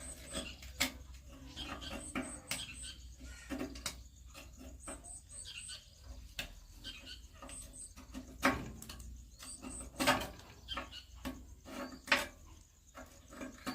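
Irregular light clicks, knocks and scrapes of hand tools and metal parts being handled while working on an old rice milling machine, with a few sharper knocks about two-thirds of the way through.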